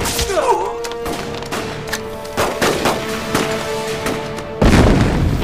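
Film battle soundtrack: scattered gunshots over dramatic background music, then a loud explosion breaks in about four and a half seconds in and keeps rumbling.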